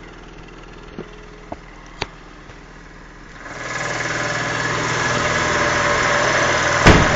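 A few faint clicks, then about halfway through a steady mechanical hum of a running machine fades up and holds, with a heavy thump near the end.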